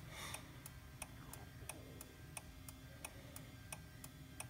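Honda GL1800 Gold Wing turn signal ticking steadily, about three faint ticks a second. The signal keeps flashing instead of cancelling while speed is reducing.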